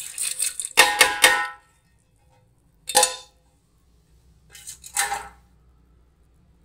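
Steel bowl knocking against the metal rim of a pressure cooker as soaked black-eyed beans are tipped in. There are three ringing clanks about a second in, another near three seconds, and a few more around five seconds.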